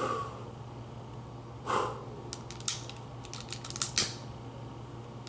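Short puffs of breath blown at the flame of a lit long-nosed utility lighter, about two seconds in and again about four seconds in, with a run of sharp clicks between them.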